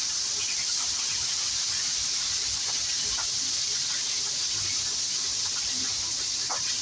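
Shrimp and a black bass fish frying in hot oil: a steady, even sizzle with a few faint pops.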